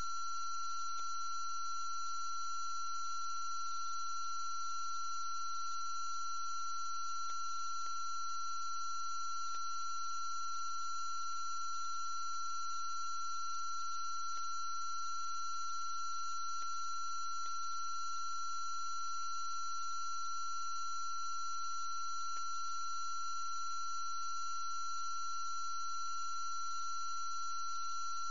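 Steady electronic tone that holds one unchanging pitch, with fainter higher tones and a low hum under it, and a few faint ticks now and then.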